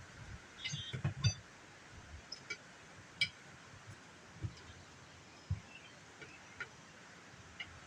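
Tire irons working an ATV tire bead over the rim: scattered clicks, light metallic clinks and low thumps at irregular intervals, busiest about a second in.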